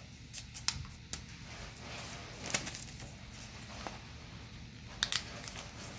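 Colored origami paper being folded and creased by hand on a tabletop, its corners brought in to the centre: scattered soft crinkles and taps, the sharpest about two and a half seconds in and again about five seconds in.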